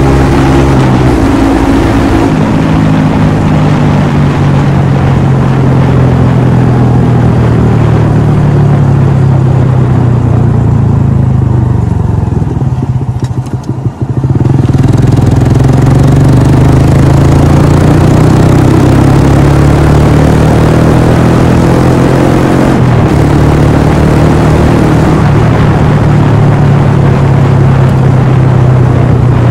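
Honda Monkey 125's single-cylinder four-stroke engine running under way, its note rising and falling with the throttle. About halfway through it falls away briefly as the bike slows, then pulls up again, with a short break in the note about three-quarters of the way in.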